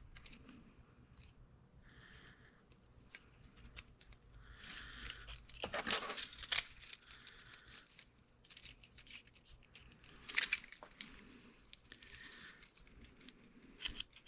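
Light metallic clicks and scrapes of a feeler gauge set being handled, its steel blades fanned out and one tried in the gap between a gear-stack shim and snap ring to check end play. Louder clattering comes briefly about six and ten seconds in.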